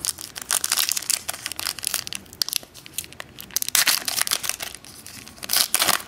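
Foil wrapper of a Contenders football card pack being torn open and crumpled by hand, in clusters of crinkling: one early, one around the middle and one near the end.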